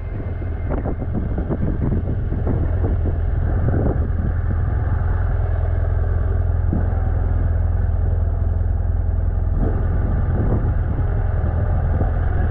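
BMW F800GS Adventure's parallel-twin engine running steadily at low speed as the motorcycle rolls slowly along, with a strong low rumble.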